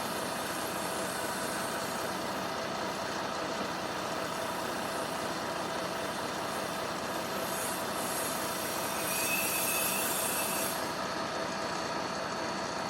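Semi truck idling steadily, with a short hiss of compressed air about nine seconds in that lasts under two seconds. No train horn blast is heard.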